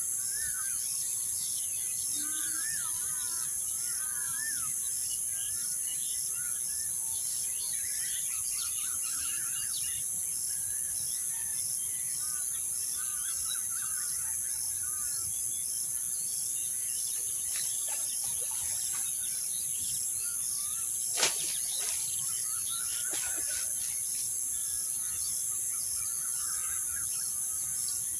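Outdoor rural ambience: a steady high insect drone with an even pulsing, and small birds chirping on and off. A single sharp click about 21 seconds in.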